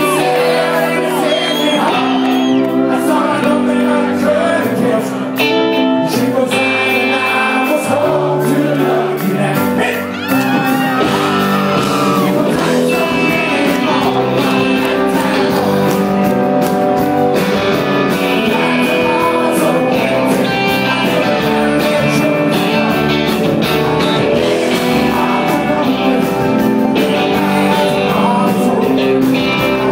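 Live rock band playing loudly with a man singing lead, heard from within the audience on a phone's microphone, with the crowd shouting along.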